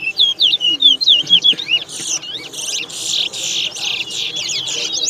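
Towa-towa finches singing in quick, repeated high chirping phrases that glide up and down in pitch; about two seconds in, the song grows denser and fuller.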